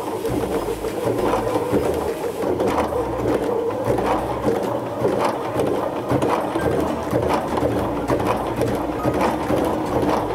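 Baby Lock Sashiko sewing machine running steadily, its needle working in a fast, even rhythm as it sews a running stitch through layered quilt fabric.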